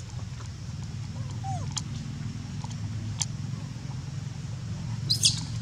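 A steady low hum under a few short, faint squeaks and clicks, with a brief sharper high chirp about five seconds in.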